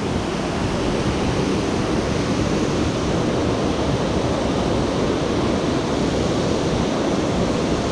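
Steady rush of water pouring over a dam, a man-made waterfall, an even noise without breaks.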